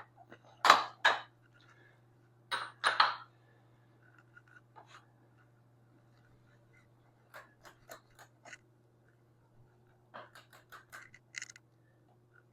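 Metal hand tools being handled on a motorcycle's rear wheel: a few loud knocks in the first three seconds, then two runs of quick, sharp clicks later on, over a faint steady hum.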